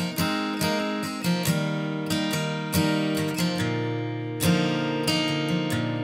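Background music: an acoustic guitar playing strummed and picked chords.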